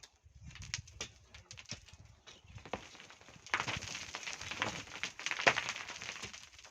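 Hand tools working volcanic sand and stones: scattered knocks and clicks, then about three seconds of dense gritty rattling from about halfway through.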